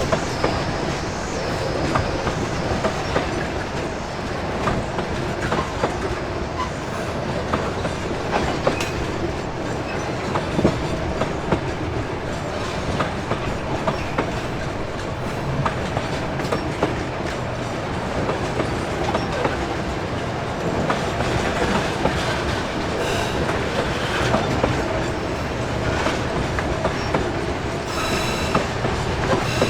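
A loaded freight train's wagons rolling steadily past, wheels clacking irregularly over the rail joints. A high wheel squeal rings out near the end.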